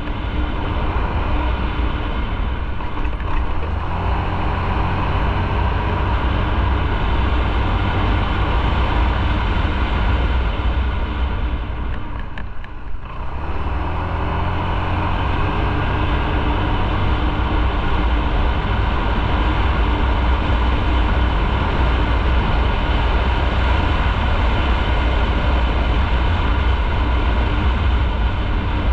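Motorcycle running on the move while being ridden, a steady low rumble throughout. The sound dips briefly about twelve seconds in, then the engine note rises again.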